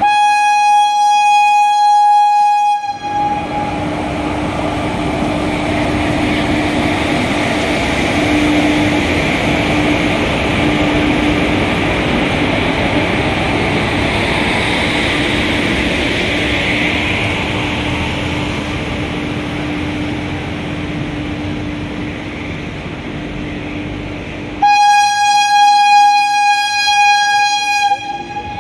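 Horn of a WAG-5 electric locomotive blowing for about three seconds as it pulls an express train out of the station, then the steady running noise of the train's coaches rolling past with a faint steady hum. The horn blows again for about three seconds near the end.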